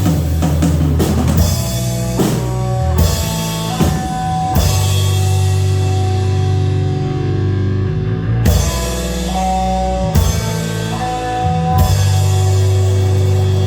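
Rock band playing: sustained bass and electric guitar notes with drum kit hits every second or two.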